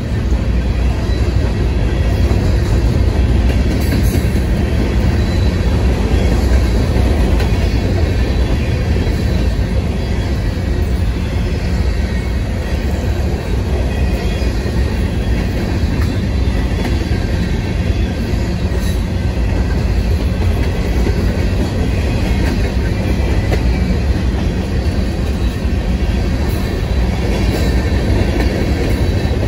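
Freight train of covered hopper cars rolling past: a steady low rumble of steel wheels on the rails, with a few faint clicks.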